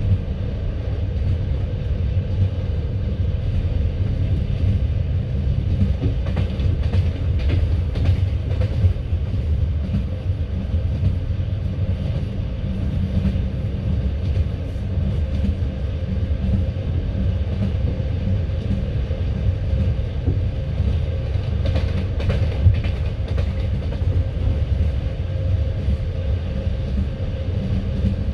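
Passenger train carriage running along the track, heard from inside the car: a steady heavy rumble of the wheels on the rails, with clusters of clicking wheel knocks over rail joints a quarter of the way in and again about three quarters of the way through.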